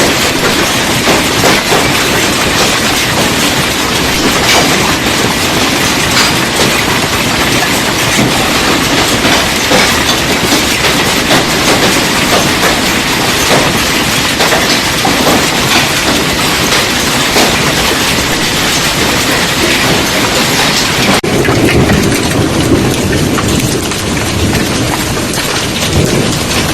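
Hailstones hammering down on hard surfaces in a dense, continuous clatter of countless impacts. About 21 seconds in, the sound changes abruptly to a duller, lower clatter.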